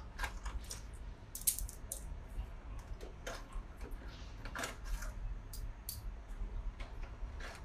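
Irregular clicks and clinks of small hard debris, coins among it, being picked out of a front-loading washing machine's clogged drain-filter outlet.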